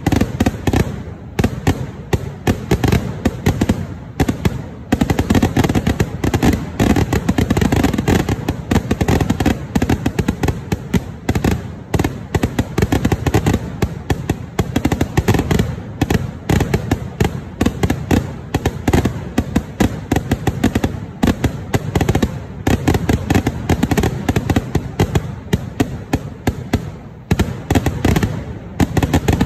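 Vedikettu fireworks: a dense, almost unbroken barrage of firecracker and shell bangs, many cracks a second, with a few short lulls.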